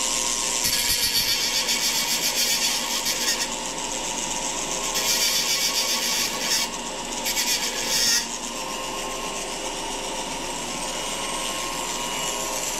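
Foredom flexible-shaft rotary tool running with a steady whine, its small abrasive wheel grinding a chip-breaker groove into a high-speed steel lathe tool bit. The grinding comes as a high-pitched hiss in three spells: a long one starting about a second in, and two shorter ones around five and seven seconds.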